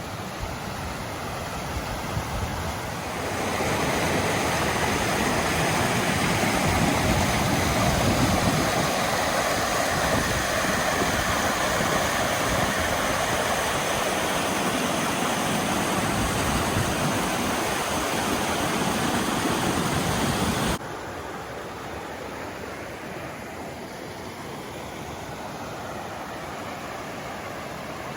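Rushing creek water, a steady rush that gets louder about three seconds in and drops suddenly to a softer rush about two-thirds of the way through.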